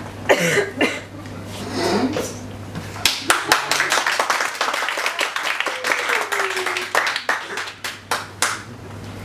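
Small club audience laughing, then clapping from about three seconds in, the clapping thinning out near the end.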